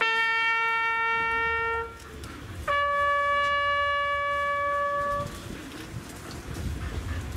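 Solo trumpet playing two long held notes, the second higher than the first, the last note ending about five seconds in.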